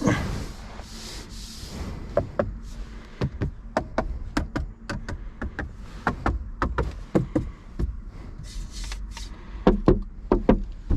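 Repeated irregular knocks and clicks on a 2023 BMW Z4 M40i, a few a second, over a low steady hum. A short hiss comes at the start and again about nine seconds in.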